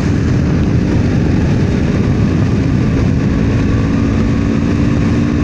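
KTM RC 390's single-cylinder engine running under way at a steady speed, holding one even note.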